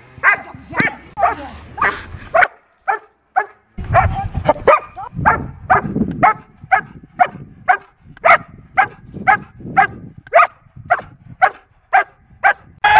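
Young German shepherd barking repeatedly, about two sharp barks a second, with a short break partway through. This is the bark-and-hold at the blind in protection training, the dog barking at the hidden helper.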